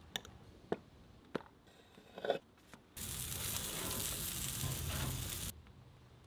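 A few light clinks of a spoon stirring sauce in a glass bowl, then burger patties sizzling on a grill grate: a steady hiss that starts abruptly about three seconds in and cuts off suddenly some two and a half seconds later. The sizzle is the loudest part.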